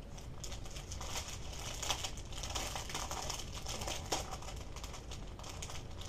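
Small clear plastic bags of diamond-painting drills crinkling as they are handled and opened, with a couple of sharper clicks about two and four seconds in.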